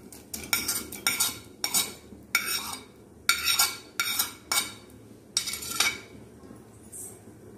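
Metal spoon scraping soft drumstick pulp off a plate into a pot: a string of irregular clinks and scrapes of metal on the plate and pot, thinning out near the end.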